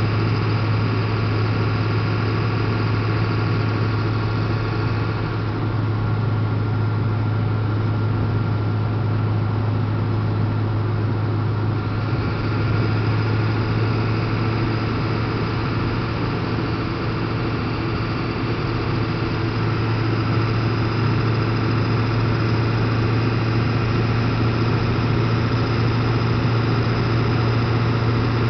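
7.3-litre V8 diesel truck engine running while driving, a steady low drone with no clear change in pace. The higher part of the sound eases off for several seconds about a third of the way in, then returns.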